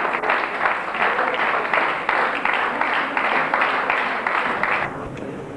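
Audience applauding with dense clapping, which stops fairly suddenly near the end.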